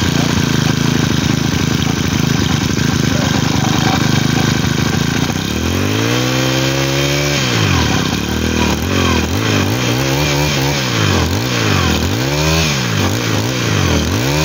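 Honda GX25 four-stroke brush-cutter engine running steadily, then revved up and held about five seconds in, followed by several quick throttle blips that rise and fall in pitch. The seller calls the engine in fine running order.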